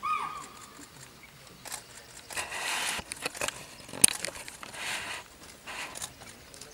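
Short bursts of soft rustling, the longest about two and a half seconds in, with one sharp click about four seconds in and a brief falling chirp at the very start.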